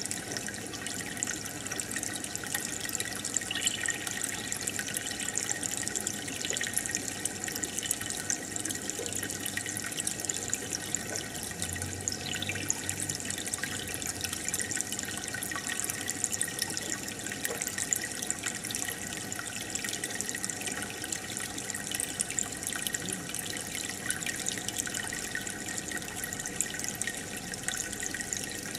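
Aquarium water bubbling and trickling steadily: a stream of air bubbles rising through the tank and the water stirred by the filter pump, a dense fine crackle without pauses.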